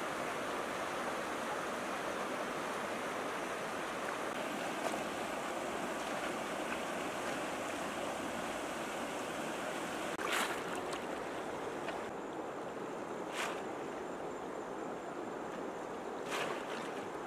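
Shallow river rushing steadily over stones, with three short splashes of water as people wade and work a fish trap in it.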